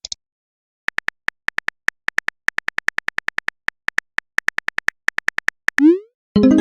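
Phone keyboard typing sound effect: a fast run of short, high clicky ticks, about eight a second, then a quick rising blip near the end like a message being sent.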